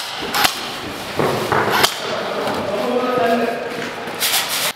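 Scattered sharp knocks and a short scrape, then a quick run of clacks near the end: an airsoft rifle firing a short burst. A man's voice speaks faintly in the middle.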